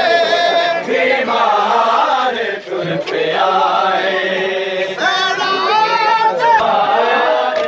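A crowd of men chanting a noha, a Shia mourning lament, together in a loud, continuous chorus, with a new phrase starting every couple of seconds.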